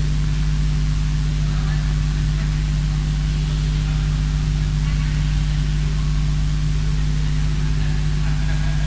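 Steady low electrical hum with an even hiss from a PA sound system.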